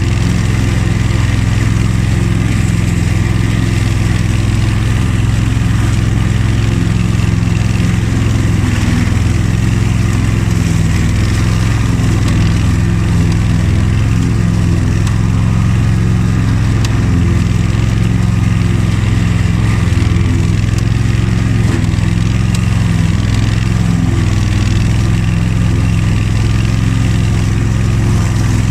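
Honda HF2622 ride-on lawn tractor's V-twin engine running at a steady speed while mowing tall grass, a constant low hum.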